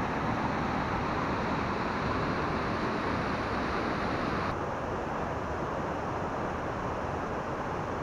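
Steady rushing roar of a mountain waterfall and its stream of falling, tumbling water. A little past halfway the higher hiss drops away abruptly, leaving a duller rush.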